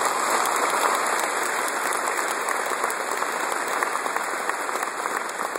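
Large audience applauding: a dense, steady clapping of many hands.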